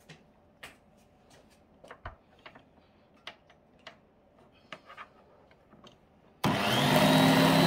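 Scattered light clicks and taps as the electric mixer's cord is handled and plugged in. Then, about six seconds in, the hand mixer on its stand base starts suddenly and runs loud and steady with a motor whine, beating cream cheese filling on a low speed setting.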